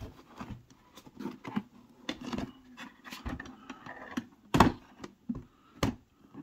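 Clicks, knocks and rubbing of hard plastic as hands handle and turn an automatic pet feeder's food container, with two louder knocks late on, a little over a second apart.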